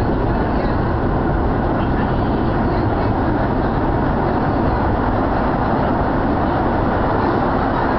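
Steady running noise of a Buenos Aires Subte metro train moving between stations, heard from inside the passenger car.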